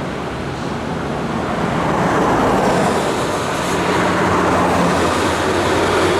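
Heavy trucks passing close on the road, their engine and tyre noise growing louder over the first two seconds and then holding steady.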